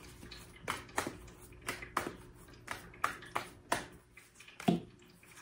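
A tarot deck being shuffled by hand: soft, irregular clicks and slaps of the cards against each other, about two a second.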